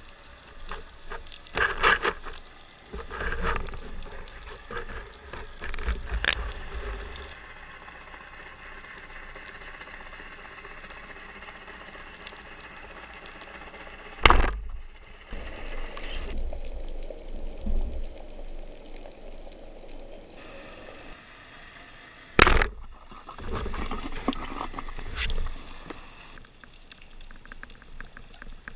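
Underwater sound through a camera's waterproof housing: a muffled rush of water with dull thumps in the first few seconds, and two sharp knocks, one about halfway through and another about eight seconds later.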